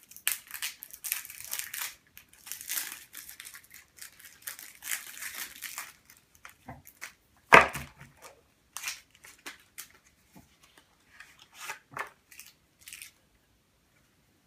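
Packaging around a deck of playing cards crinkling and tearing as it is cut open and pulled off, for about six seconds. A sharp knock follows about seven and a half seconds in, then scattered clicks and rustles of handling.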